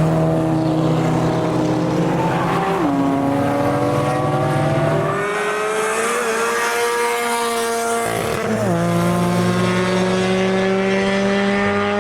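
Car engines on a race circuit, accelerating, the engine note climbing steadily and dropping sharply twice, about three seconds in and again near nine seconds.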